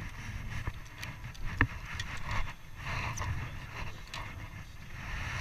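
Scattered light knocks and taps over an uneven low rumble, as fishing line is hauled in by hand over a boat's stern with a small fish on it.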